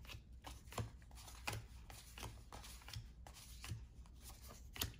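Basketball trading cards being flipped through one at a time by hand: faint, short card flicks, roughly one every three quarters of a second.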